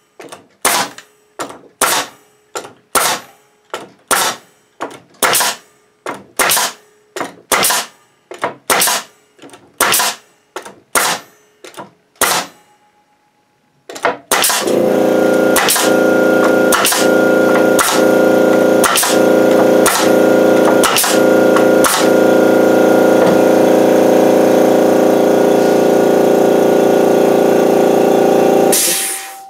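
Bostitch N75C-1 pneumatic coil nailer firing nails into a board, sharp shots at about two a second. About fourteen seconds in, the Makita MAC2400 air compressor cuts in as the tank pressure drops and runs with a steady hum while more nails are fired. It shuts off near the end once the tank has pumped back up.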